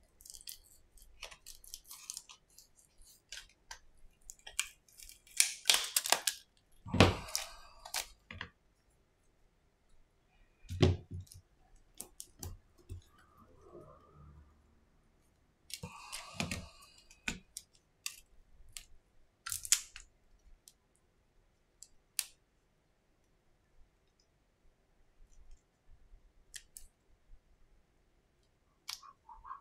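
Hands handling an opened-up Samsung Galaxy A10 and its parts on a silicone repair mat: scattered light clicks, taps and rustling, with two dull knocks about seven and eleven seconds in.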